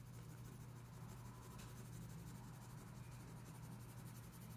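Faint scratching of a wax crayon being rubbed back and forth on paper while colouring in, over a low steady hum.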